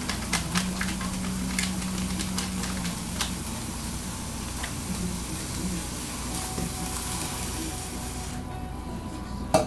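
Browned ground beef with taco seasoning sizzling in a skillet, with the clicks and scrapes of a spoon stirring it. The sizzle drops off about eight and a half seconds in.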